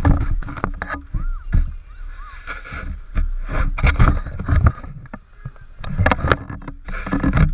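Motorboat running through open-ocean chop, its hull slapping the waves irregularly over a steady low rumble, with rushing water and wind on the microphone.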